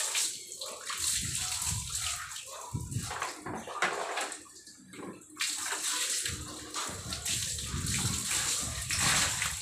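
Water poured over a dog and splashing onto a wet tile floor during a bath. The pouring stops briefly about halfway through and then starts again.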